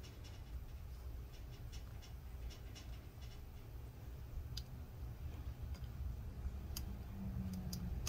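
Faint, scattered small clicks and scratches of a laptop ribbon cable being worked into its motherboard connector, over a low steady hum.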